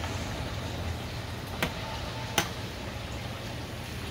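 Pork bubbling in a large steel pot of hot lard, a steady sizzle over a low rumble, with two sharp metal clinks from the long steel paddle, about a second and a half and two and a half seconds in.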